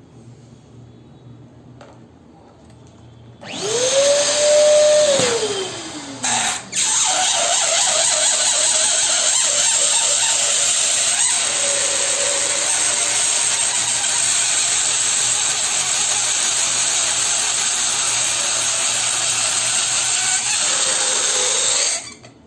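Electric balloon pump running. A short first run about three and a half seconds in has a motor whine that rises and then falls away. After a click, it runs steadily with a loud hiss of air for about fifteen seconds while a balloon inflates, then cuts off near the end.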